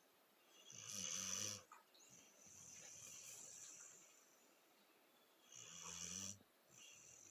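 Small dog snoring in her sleep: two snores about five seconds apart, with a softer hissing breath between them.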